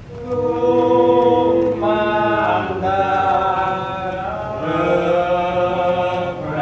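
Javanese Islamic devotional chanting (sholawat and macapat), sung slowly in long held notes that step from pitch to pitch every second or so. It swells in just after the start.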